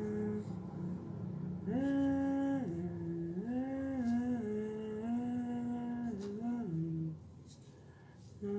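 A person humming a slow tune in long held notes that step up and down in pitch, with a pause of about a second near the end.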